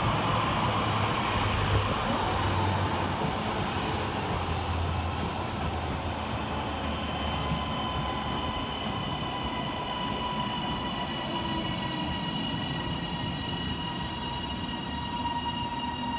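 Northern Class 331 electric multiple unit pulling into the station past the trackside: steady wheel and rail rolling noise, with a thin steady high whine coming in about halfway through.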